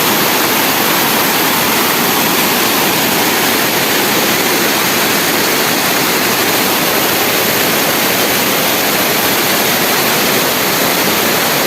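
Small waterfall splashing into its pool, a steady rushing hiss of falling water close to the microphone.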